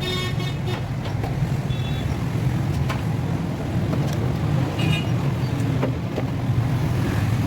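A car engine running steadily at idle, with a few scattered sharp clicks.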